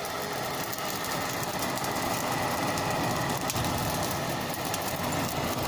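Hair dryer running steadily, its air blast rushing into a barbecue to fan the coals into flame, with a low rumble and fine crackling throughout.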